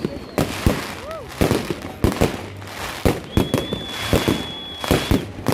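Fireworks exploding in rapid, irregular bangs and crackles. About three seconds in, a steady high whistle holds for about two seconds over the bangs.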